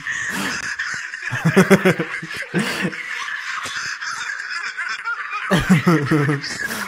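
A man laughing in several short bursts, loudest about a second and a half in and again near the end.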